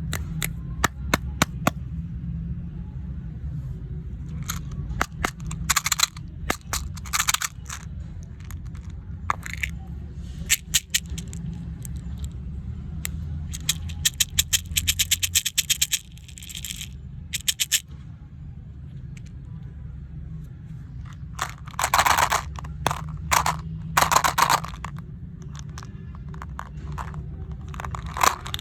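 Candies and their plastic packaging being handled: many sharp clicks and taps, with a few longer bursts of crinkling, over a steady low hum.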